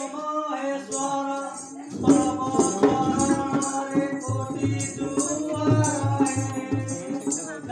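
Live Odia Danda Nacha folk music: a voice sings a drawn-out melody over regular jingling of small cymbals. A drum joins about four seconds in, beating about three times a second.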